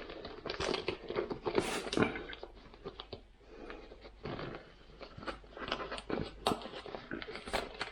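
Handling noise: irregular rustling, crinkling and small clicks and knocks as a cable is tucked into a bag by hand.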